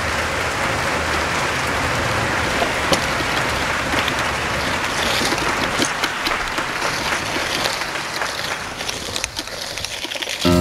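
A bicycle dog trailer rolling along: a steady rush of wheel and riding noise, with scattered crackles and ticks after a few seconds as it moves onto a dirt-and-gravel track.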